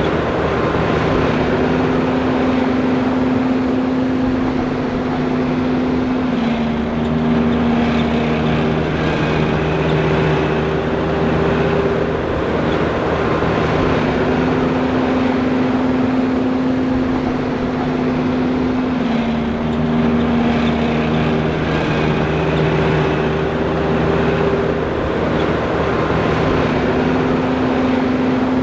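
John Deere 5820 self-propelled forage harvester running steadily, a loud mechanical drone with humming tones that step slightly down and back up every several seconds.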